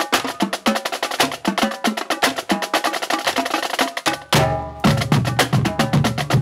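Background music driven by fast, rhythmic percussion with sharp wood-block-like clicks. A little past four seconds it breaks for a short held chord, then the beat comes back with a heavier bass underneath.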